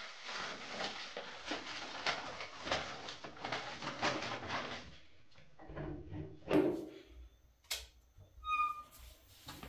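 Kitchen handling noise: a few seconds of dense crackling and rustling, then scattered knocks and clatter, with a sharp knock and a couple of short squeaks near the end.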